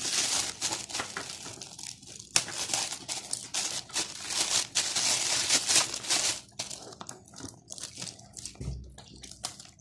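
Metallic foil gift wrap being crinkled and torn open by hand as a present is unwrapped: dense crackling for the first six seconds or so, then sparser rustles and crackles.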